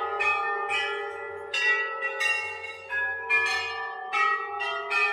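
Large hanging metal temple bells struck one after another, roughly every half second. Their long clanging rings overlap into a continuous peal.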